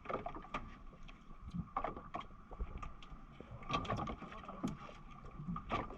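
Irregular knocks and clicks of gear against a small fishing boat, over a thin steady whine.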